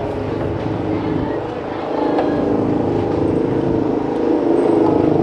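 A motor vehicle's engine running close by, steady in pitch, growing louder about two seconds in and again near the end.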